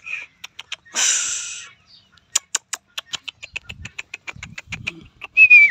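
Birds calling: a harsh rasping call about a second in, then a fast, even run of sharp chips at about five a second, and a loud short whistled note falling in pitch near the end.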